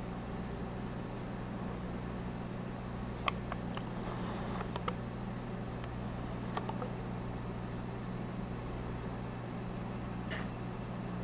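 Steady low electrical hum with a light hiss from running aquarium equipment, with a few faint clicks between about three and seven seconds in.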